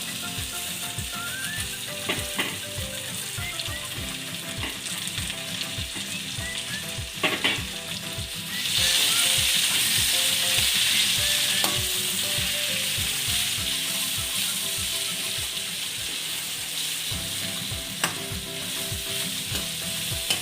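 Thoothuvalai leaves sautéing with onions, garlic and chillies in hot oil in a kadai, sizzling and being stirred. The sizzle grows louder about nine seconds in.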